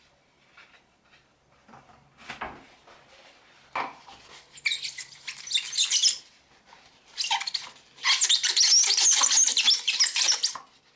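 Squeaking as a yellowed plastic solar-light cover is rubbed and polished with Meguiar's, in two bouts about four and seven seconds in, the second one longer. This is the squeaky-clean sound the polish makes as the yellowing comes off.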